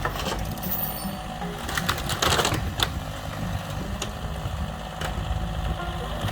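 A motor running unevenly under rapid clattering, with a louder burst of crackling about two seconds in.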